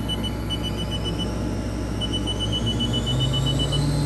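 Haas Super Mini Mill spindle speeding up from 3,600 toward 10,000 RPM, its whine rising steadily in pitch. Rapid runs of short electronic beeps sound over it.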